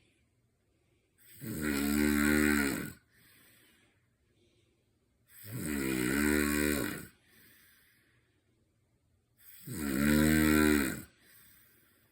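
A person snoring after drinking alcohol: three loud, rasping snores about four seconds apart, each followed by a faint breath.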